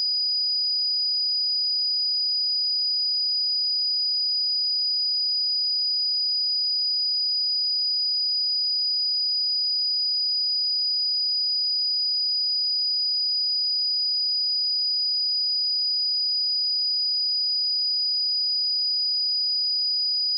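A steady 4933 Hz sine-wave test tone: one pure, high-pitched tone held at a constant pitch and level.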